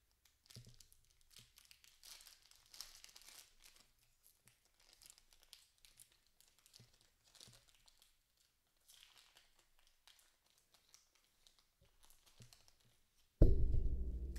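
Wrapper of an Upper Deck hockey card pack being torn open and crinkled by hand: faint, scattered rustles and tears. Near the end a much louder low-pitched sound cuts in.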